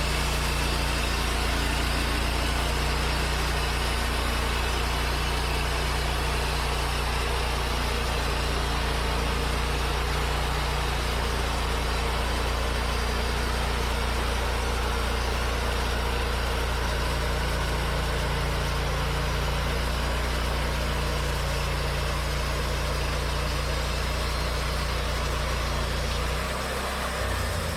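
Wood-Mizer LT40 band sawmill running steadily, its engine working under load while the band blade saws a thin adjustment strip off a hemlock cant. The sound stays even throughout and cuts off at the end.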